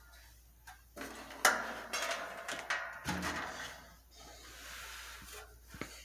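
Handling noise: rubbing and light knocks with a few sharp clicks as a metal box fan and its blades are handled. It starts suddenly about a second in and is quieter in the second half.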